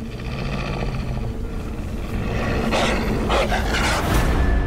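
Wolf growling and snarling in several harsh bursts, over a low rumble that swells toward the end.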